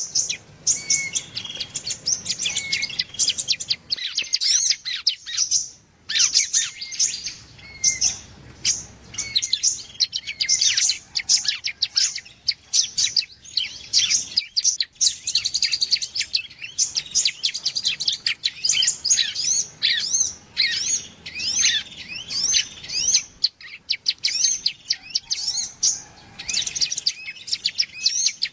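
Recorded lure calls of bar-winged prinia (ciblek) and sunbird (kolibri) mixed together: rapid, high chirps and short trills that come almost without a break, with a brief lull about five seconds in.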